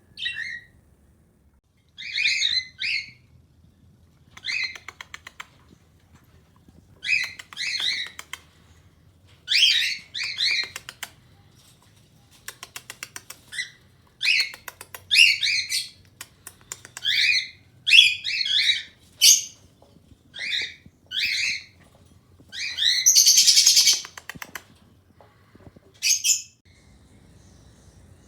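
Cockatiels calling over and over: loud short whistled chirps, with one longer harsh screech near the end.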